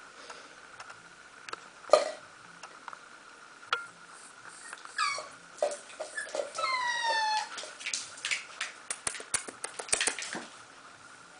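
Young puppies whimpering: a short whine about five seconds in and a longer whine falling in pitch around seven seconds. Around the whines come a sharp knock about two seconds in and a run of clicks and knocks.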